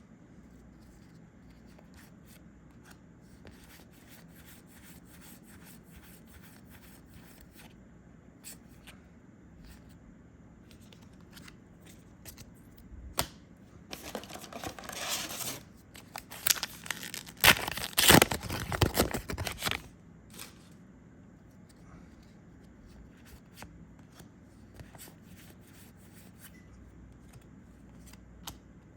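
Star Wars Unlimited booster packs being opened and their cards handled: faint clicks and slides of cards, with a louder few seconds of foil wrapper tearing and crinkling around the middle.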